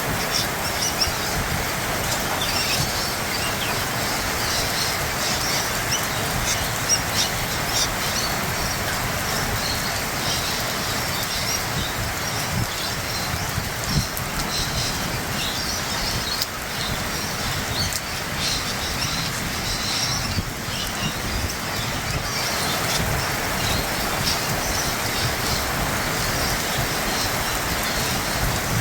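Steady rain falling: an even hiss with many short, sharp drop sounds scattered over it.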